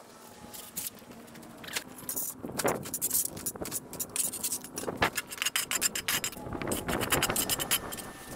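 Scraping and rustling with many quick clicks and knocks from yard work in mulch and soil, louder strokes about two and a half and five seconds in.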